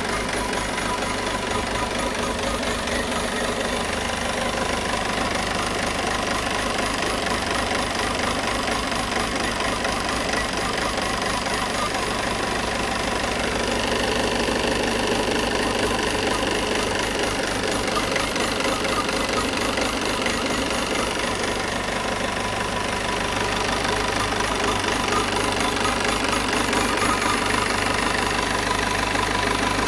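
Peugeot 508's 2.0 BlueHDi four-cylinder diesel engine idling steadily with a fast, even pulse and a strange noise that the owner cannot explain.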